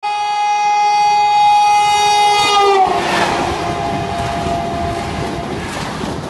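A train horn sounds one long chord for nearly three seconds, its pitch dropping near the end as the train passes. The rushing noise of the train going by follows.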